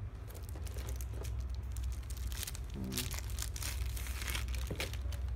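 Plastic packaging crinkling and rustling as the trimmer is handled and unwrapped, in a run of short crackles that are busiest in the middle.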